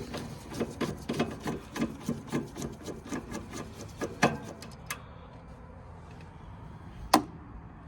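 Hands working on furnace parts: a quick, irregular run of clicks and scrapes for about five seconds, then one sharp click near the end.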